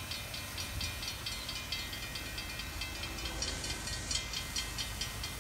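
Railroad grade-crossing warning bell ringing rapidly, about four to five dings a second, over a low rumble: the crossing signals are active, warning of an approaching train.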